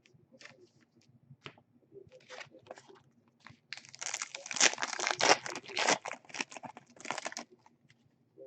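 A trading card pack's wrapper being handled, then crinkling and tearing open in a dense rush of about three and a half seconds, starting a little under four seconds in.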